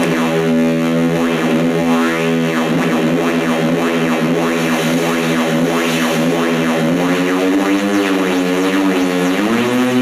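Moog Mother-32 analog synthesizer sounding a steady droning note, with repeated sweeps rising and falling through its upper tones as its knobs are turned. In the last few seconds the pitch wavers and then slides upward.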